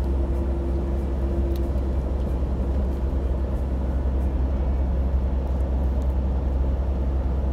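Steady low rumble of a semi truck heard from inside the cab.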